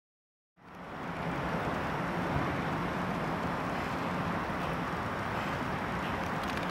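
Steady outdoor harbour ambience fading in after a moment of silence: an even wash of noise with a faint steady low hum underneath.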